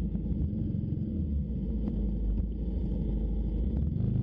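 Kawasaki Z250SL motorcycle's single-cylinder engine running with a steady low rumble.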